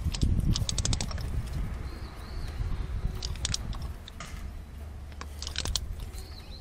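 Socket ratchet clicking in three short quick runs as a spark plug is tightened, over a low rustle of hands and tools.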